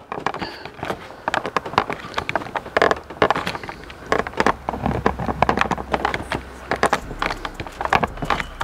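Irregular clicks, taps and crackles of fingers pressing and rubbing a carbon-fibre dive plane against the plastic front bumper to seat its double-sided tape, with a low steady hum coming in about halfway through.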